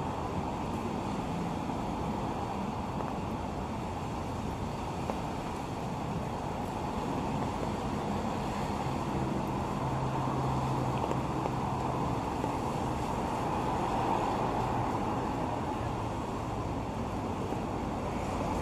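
Steady low rumble of city traffic, with a faint low hum that strengthens briefly past the middle.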